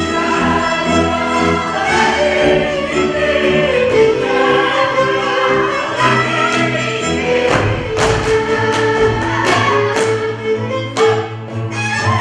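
Live Hungarian folk string band with fiddle and double bass playing a lively dance tune, with voices singing along. In the second half, several sharp slaps and stamps of the dancers' boots cut through the music.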